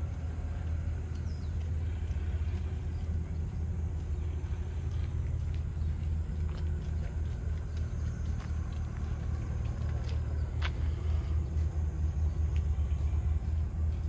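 A steady low rumble that grows a little louder in the second half, with a faint click a little before 11 seconds in.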